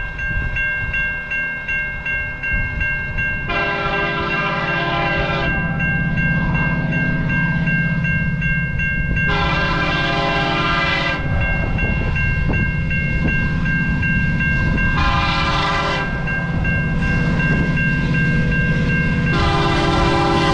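Horn of an approaching CN freight locomotive sounding the grade-crossing signal: long, long, short, then a final long blast starting near the end. Under it the crossing's warning bell rings steadily and the train's low rumble keeps building.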